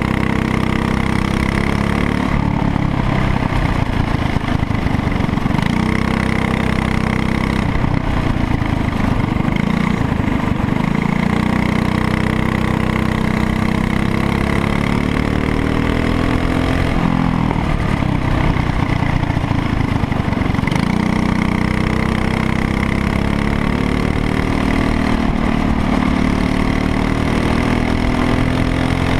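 Racing kart engine heard from on board, its revs climbing steadily along the straights and dropping away into the corners several times over.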